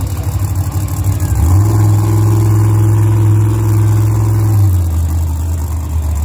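Monster truck engine running with a deep drone, revved up about a second and a half in, held high for about three seconds, then dropping back to a lower rumble.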